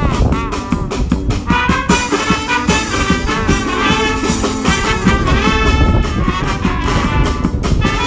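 Street brass band playing an upbeat tune: trumpets, trombones and a sousaphone over a steady snare drum beat.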